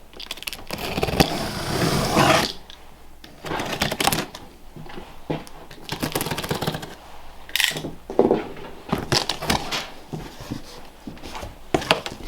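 Cardboard and plastic packaging rustling and scraping as a sealed wheel box is opened by hand, with a longer scrape in the first two seconds or so, then scattered rustles and clicks.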